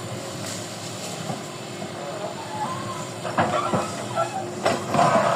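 Heavy construction machine running with a steady hiss, with several sharp metallic knocks in the second half and a brief whining squeal.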